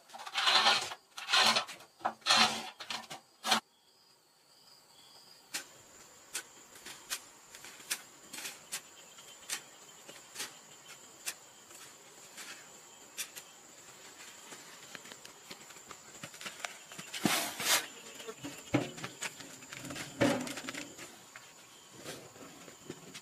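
A few quick, loud scraping strokes of gloved hands brushing a concrete floor, then a steady high insect drone with scattered clicks, broken by two longer scrapes of work in sand and cement.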